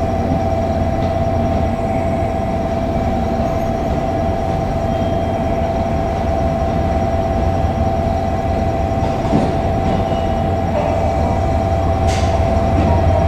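Japanese railway level-crossing warning bell ringing steadily, its tone shifting slightly about eleven seconds in, over the low running rumble of a KiHa 200 diesel railcar.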